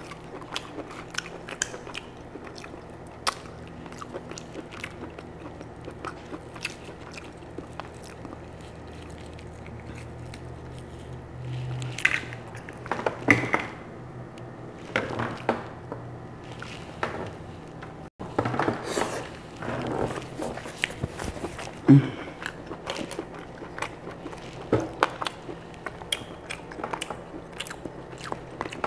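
Boiled lobster claw shell crackling and clicking as it is picked apart by hand, with louder crunches midway, then chewing of the claw meat.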